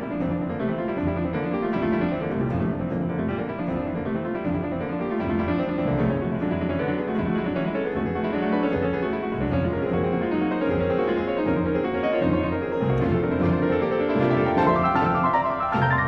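Background instrumental music: a classical-style piece led by piano, playing a run of quick notes throughout.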